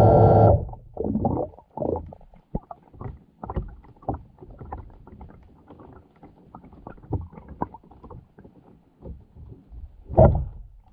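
A steady tone cuts off about half a second in. After it come muffled, irregular low knocks and swells of water movement, as picked up by a camera in the water, with one louder swell near the end.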